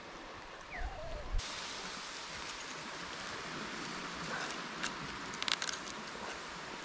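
Campfire crackling and hissing under a bed of akul mud mussels roasting in their shells, starting about a second and a half in, with a few sharp clicks.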